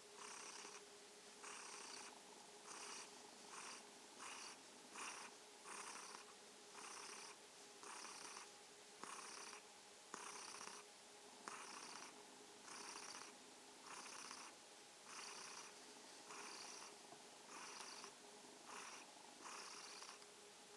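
Tabby cat purring steadily and softly, the purr pulsing about once a second with its breathing in and out.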